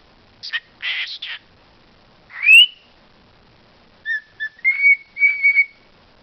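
Pet talking bird vocalising: a few short breathy, hissing bursts, then one loud rising whistle, then a run of short, steady whistled notes.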